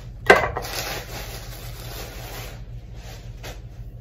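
Plastic bubble wrap rustling and crinkling as a stemmed glass is worked out of it, opening with a sharp crackle. The rustling stops about two and a half seconds in, followed by a few faint clicks.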